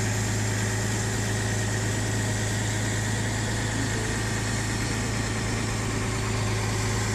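Engine running steadily at a constant speed, a strong unchanging low hum under even machine noise.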